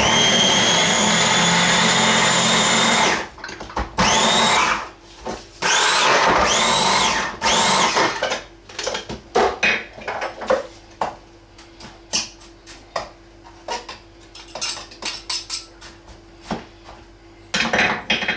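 Electric mini food chopper blitzing onions in pulses. The motor whine runs for about three seconds, then comes in several shorter bursts whose pitch rises and falls as the blade spins up and down. Later come scattered light knocks and clicks, and one more short burst near the end.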